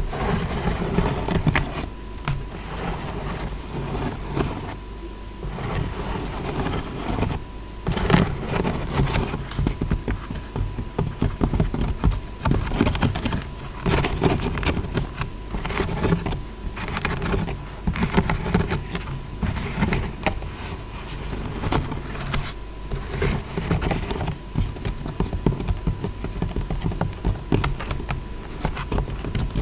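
Close-miked ASMR tapping and scratching: dense, irregular fingertip and fingernail taps and scrapes on objects, with a faint steady tone underneath.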